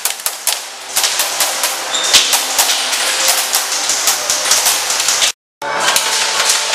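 Airsoft guns firing in quick strings of sharp snapping shots and clicks. The sound breaks off for a moment about five seconds in, then the shots go on.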